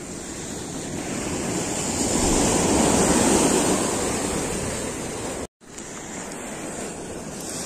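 Ocean surf washing in over shore rocks. One wave surges up to its loudest about three seconds in and ebbs away. After a brief dropout, a quieter steady wash follows.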